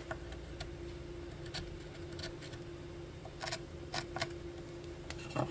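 Hand carving chisel paring at oiled red oak, a few short, faint scrapes and ticks spaced irregularly as the thin wood-burned surface layer is shaved off. A steady faint hum runs underneath.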